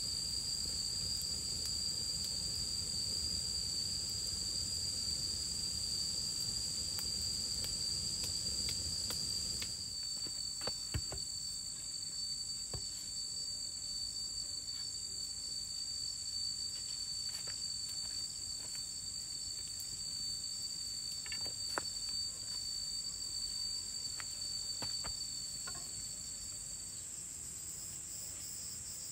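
Insects droning in two steady high-pitched tones; the lower tone stops near the end. For about the first ten seconds a campfire burns underneath with a low rushing sound, and a few faint ticks follow later.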